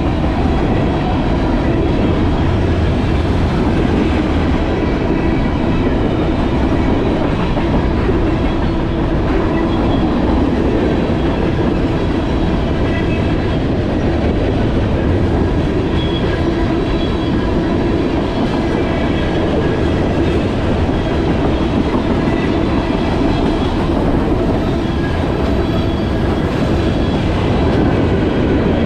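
Steady rumble of wind and road noise while riding an e-bike, with a faint steady whine over it.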